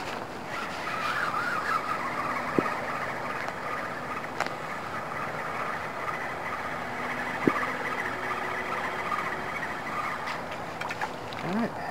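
MotorGuide Xi3 electric trolling motor running steadily on heading lock, a constant hum with a thin whine over it, and a few light clicks scattered through.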